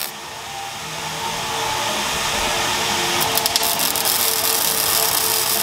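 MIG welder arc crackling and hissing as an exhaust pipe is welded, louder and sharper from about halfway in.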